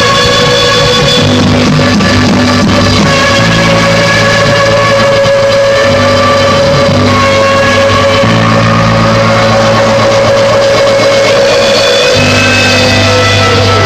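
Rock band playing an instrumental passage: electric guitar holding long sustained notes over a changing bass line and drums, with the guitar bending between notes near the end.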